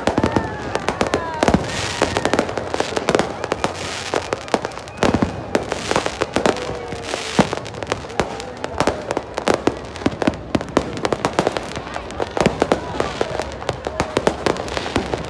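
Fireworks display: aerial shells bursting in quick, irregular succession, with sharp bangs and crackling, and a few falling whistles in the first half.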